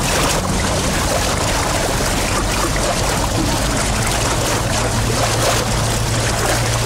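Two-man sprint kayak paddles splashing hard in the opening strokes of a race, a dense rush of churned water. A steady low hum sits underneath and grows stronger about halfway through.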